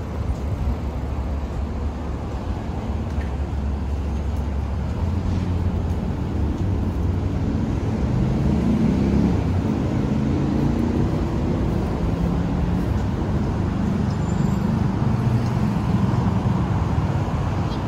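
City road traffic: motor vehicle engines running past with a steady low rumble, growing louder about halfway through as an engine's note rises.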